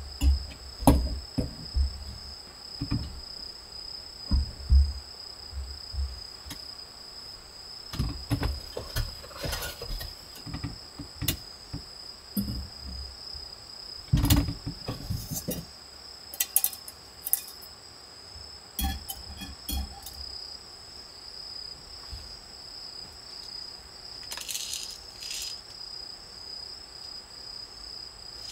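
Camping gear handled on a wooden table: knocks, clicks and metal clinks as a gas canister is fitted to a small burner and a wire grill grate and metal pot are set on it, with one heavier thump about halfway. Crickets chirp steadily in the background, and packaging crinkles briefly near the end.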